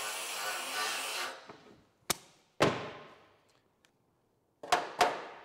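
Small handheld grinder grinding a spot of bare metal on a steel chassis rail, cutting off a little over a second in and winding down. Then four sharp metallic knocks in two pairs, each ringing briefly.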